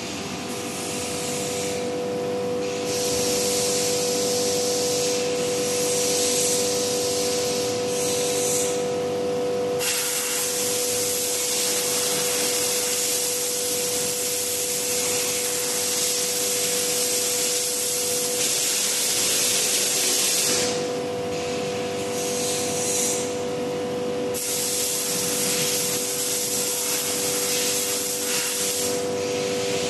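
Fiber laser bevel tube cutting machine at work: a steady hiss of the cutting head's gas jet that breaks off briefly a few times between cuts, over a steady machine hum.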